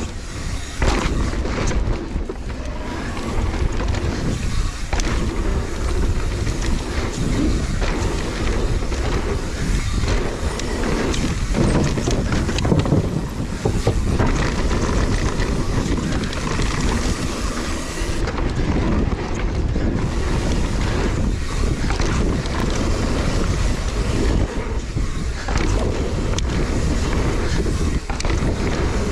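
Wind buffeting an action camera's microphone on a mountain bike descending a dirt trail at speed, mixed with tyres rolling over dirt and the bike knocking and rattling over bumps.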